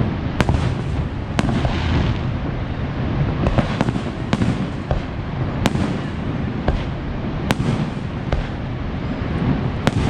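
Fireworks bursting overhead: a dozen or so sharp bangs at irregular intervals, roughly one every second, over a continuous low rumble.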